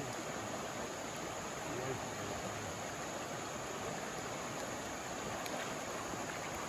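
River water rushing steadily over shallow riffles and small rapids.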